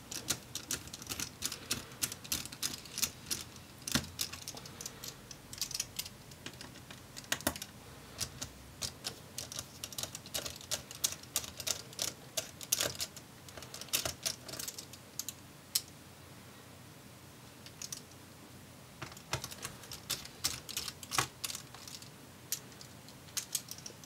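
Small Phillips-head precision screwdriver backing out the laptop cooling fan's three retaining screws: a run of light, irregular clicks and ticks, with a quieter pause of a few seconds about two-thirds of the way through.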